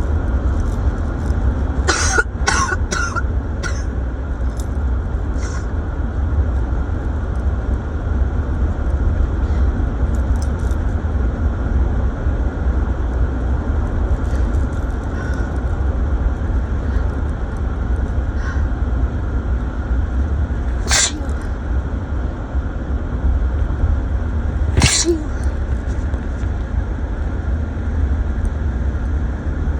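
Steady low road rumble of a car driving, heard from inside the cabin, with a person's sharp explosive bursts of breath: a quick run of about four close together about two seconds in, then two single ones well apart in the second half.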